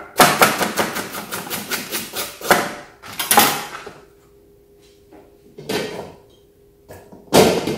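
Chef's knife chopping a carrot quickly on a cutting board, about six cuts a second for a couple of seconds. Then come three separate louder knocks, a couple of seconds apart.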